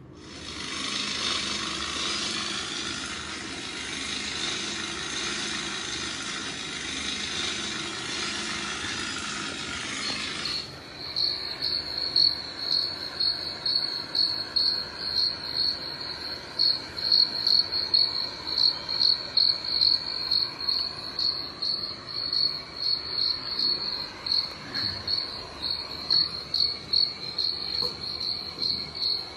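Cricket chirping from a phone's speaker: a high-pitched chirp that pulses rapidly on one note, starting about a third of the way in after a steady hiss that cuts off suddenly.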